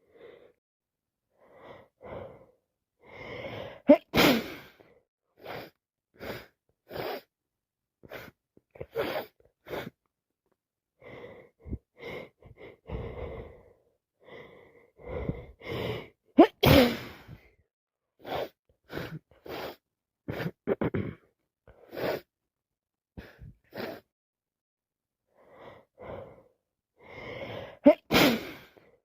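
A woman with a head cold sneezing three times, loudly and suddenly, about twelve seconds apart. Each sneeze follows a build-up of short, gasping in-breaths.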